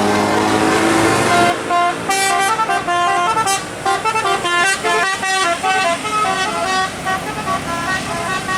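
Bus telolet musical horn: a long low horn blast that cuts off about a second and a half in, then a quick tune of short stepped horn notes, several a second.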